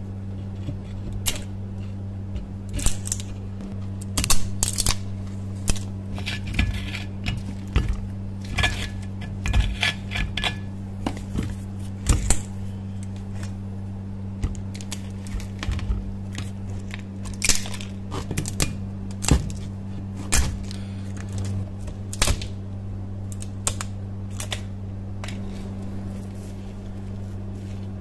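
Thick rust scale being chipped and pried off a rusty hammer head with a steel chisel and broken away by hand: irregular sharp cracks and scrapes as flakes snap off and drop onto the wooden bench, over a steady low hum.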